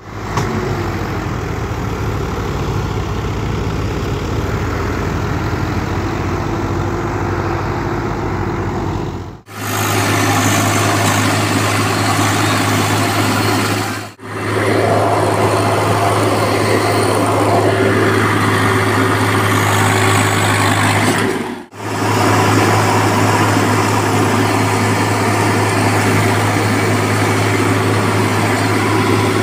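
Tractor diesel engine running steadily and loud close to the microphone, with a deep steady hum. The sound breaks off abruptly three times where separate clips are joined.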